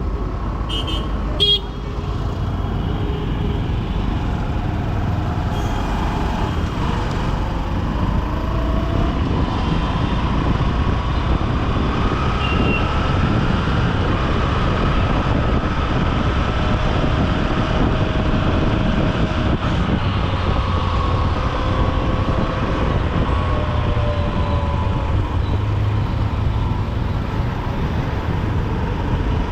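Honda SP125's single-cylinder engine running under way through dense city traffic, with other vehicles' horns honking now and then. A sharp click comes about a second and a half in.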